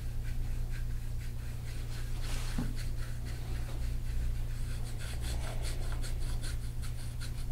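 Gua sha scraping tool rubbing over oiled skin of the shoulder and upper arm in quick, repeated scratchy strokes that come faster in the second half.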